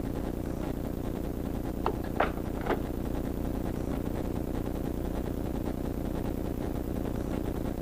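Off-road race vehicle's engine idling steadily, heard from inside the cab, with three short clicks about two seconds in.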